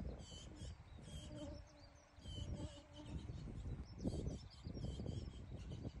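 Small birds chirping again and again in short, high notes, over a gusty low rumble of wind on the microphone that eases off about two seconds in.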